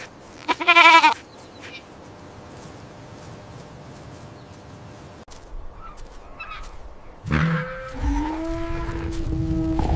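A farm animal bleats once, a short quavering bleat about half a second in. From about seven seconds in a second animal gives a long call held at a steady pitch.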